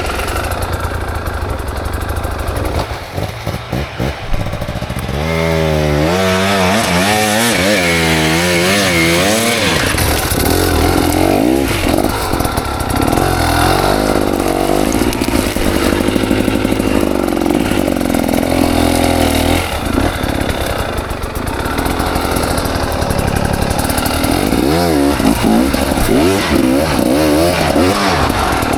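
KTM 300 XC's two-stroke single-cylinder engine revving up and down as the throttle is worked, its pitch rising and falling again and again. The swings are sharpest from about five to ten seconds in and again near the end, with a short dip in loudness just before the first run of swings.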